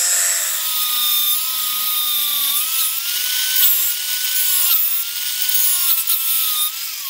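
Angle grinder with a shortened metal cutting blade cutting into metal: a grinding hiss over a wavering motor whine that dips as the blade loads up. Near the end it is switched off and the whine starts to fall as the blade spins down.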